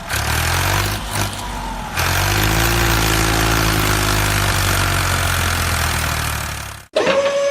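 A vehicle engine running steadily, then cutting off abruptly near the end as a steady high whistle-like tone begins.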